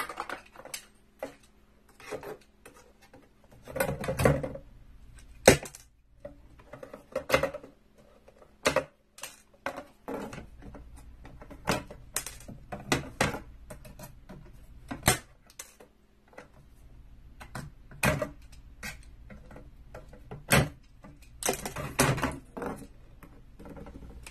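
Irregular clicks, snaps and short scrapes as retaining tabs are pulled one by one out of a picture frame, with a faint steady hum beneath.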